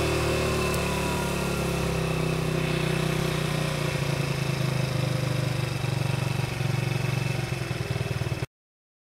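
Zipp Vapor four-stroke scooter engine dropping in pitch, then running at low speed with a choppy, uneven beat from about four seconds in. The sound cuts off suddenly near the end.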